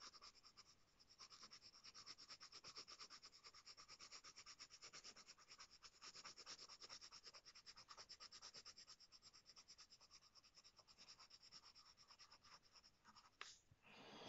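Coloured pencil shading on paper: rapid, faint back-and-forth scratching strokes of the lead, stopping about a second before the end as the pencil lifts off.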